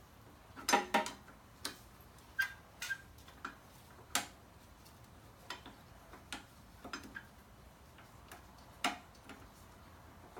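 Irregular sharp metallic clicks and taps of a screwdriver against the brake caliper and pads of a 2017 Indian Chieftain motorcycle, as the two caliper pistons are pried back to free the worn pads. The loudest pair of clicks comes about a second in, and a few of the taps ring briefly.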